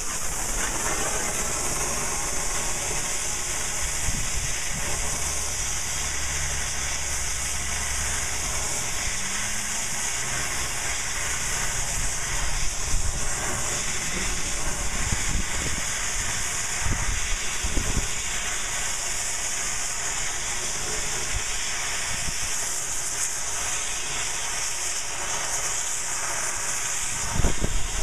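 Arcair cutting torch burning into a railroad tie: a steady, loud hiss from the gas jet and arc, with a few louder pops near the end.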